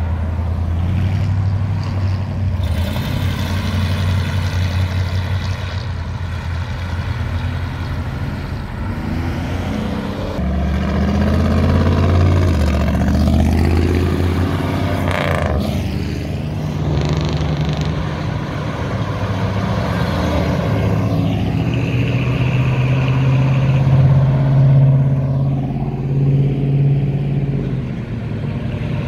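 Classic cars driving past one after another, their engines running as they pull away down the street. One passes close about halfway through, its pitch sweeping as it goes by.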